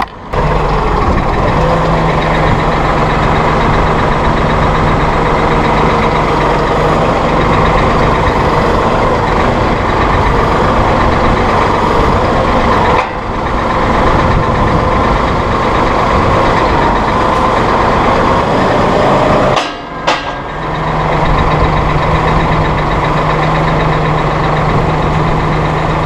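Massey Ferguson 4610M tractor's diesel engine running steadily while it works the 931X loader up to the bale spear. There are brief breaks in the sound about halfway and about two-thirds of the way through.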